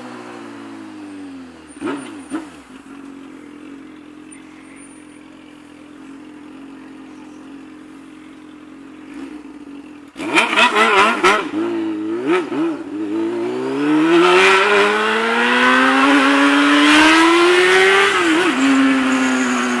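Honda Hornet inline-four motorcycle with a 'borozinho' exhaust diffuser insert. The engine note falls and runs low and quiet for several seconds. About ten seconds in it turns loud with a few quick revs, then pulls up in one long rising acceleration and dips near the end.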